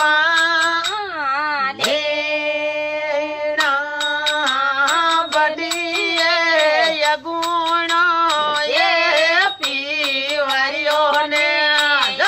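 A high voice singing a Marwari folk song in a wavering, ornamented line, holding one long steady note about two seconds in. Faint regular clicks keep time underneath.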